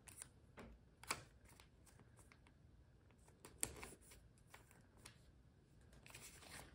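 Near silence with faint paper handling: planner stickers being peeled and pressed down, giving a few soft clicks and rustles, the clearest about a second in and again in the middle.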